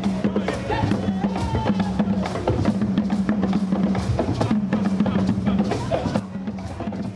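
Music with a steady drum beat and a repeating bass line.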